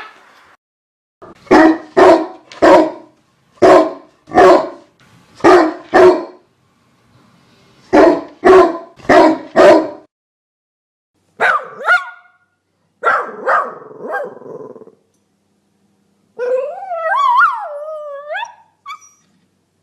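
Dog barking: sharp barks in quick groups of two to four with silent gaps between, then a couple of higher yelps, and near the end a long wavering whine that rises and falls in pitch.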